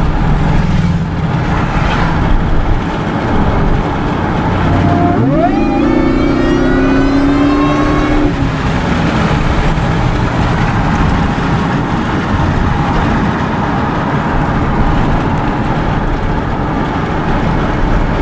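2002 SVT Lightning pickup driving, its supercharged V8 and road noise running steadily. About five seconds in, a whine rises sharply, holds for a few seconds and fades.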